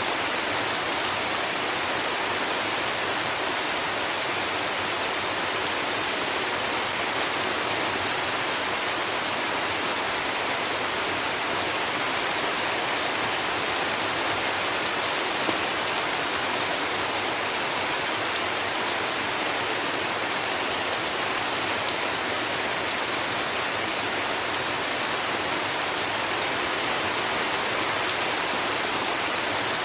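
Heavy rain falling steadily: an even hiss with fine patter of drops, unchanging throughout.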